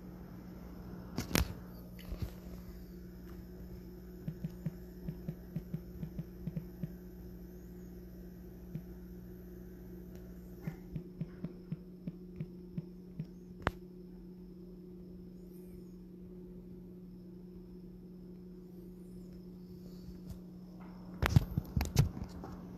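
Steady low hum, with runs of light taps and a few louder knocks from the recording phone being handled and tapped while it is set up. The louder knocks come about a second in and again near the end.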